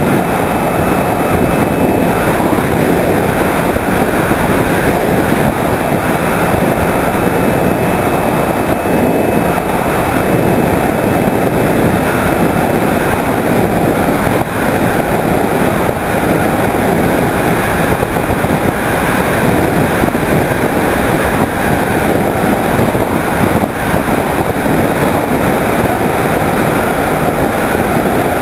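Steady drone of the Skyhunter 1.8m RC plane's electric motor and propeller mixed with wind rush, picked up by a camera mounted on the plane in flight.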